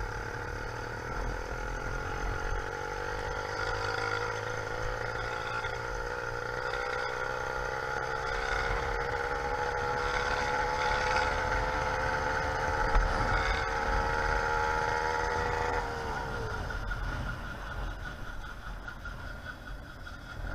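A YD100 two-stroke motorized-bicycle engine with a window piston, running, its pitch climbing slowly as it pulls for about sixteen seconds, then dropping away and fading near the end.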